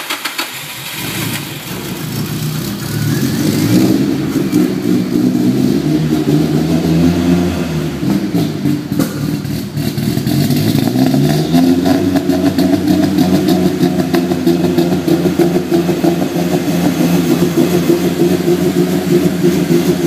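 Nissan SR20DET turbocharged four-cylinder running in a BMW E30, its engine speed wandering up and down for the first ten seconds or so, then settling into a rough, uneven idle. The rough running comes from a wrong base map in the engine management.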